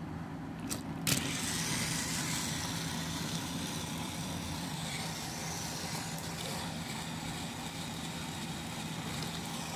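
Battery-powered Thomas & Friends toy train engines running on plastic track: a steady small-motor whir with the rattle of wheels and gears, starting with a click about a second in.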